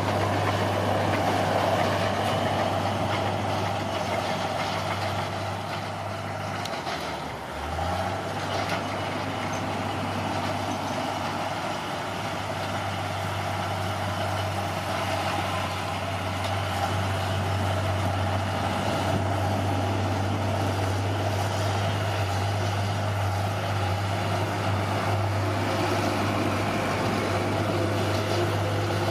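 Bulldozer's diesel engine running steadily under work, its note dipping briefly about seven seconds in and then recovering.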